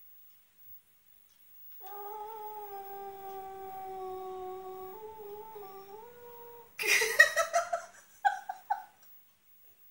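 Domestic cat wailing: a long, low, drawn-out wail of about five seconds, nearly level in pitch and stepping up a little near its end, followed by a louder, harsher run of short broken yowls for about two seconds.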